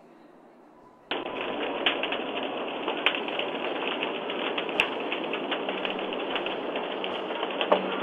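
Crackling of a house fire burning close by, with scattered sharp pops, heard through a doorbell camera's small microphone. The first second is silent before the crackling cuts in.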